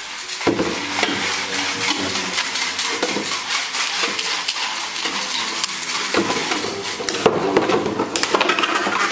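Metal-rimmed Infinity Nado spinning tops whirring and skittering around a plastic battle arena, with a continuous dense clatter as they scrape the bowl and knock into each other. There are louder sharp hits near the end.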